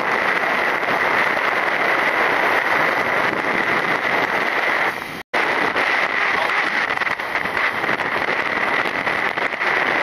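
Steady rush of wind on the microphone from riding a motorbike, with the motorbike running underneath it. The sound breaks off for an instant about five seconds in.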